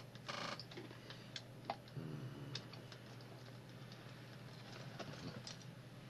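Faint handling of handmade paper-and-card envelope books: scattered light clicks and taps with a short rustle near the start, over a faint steady hum.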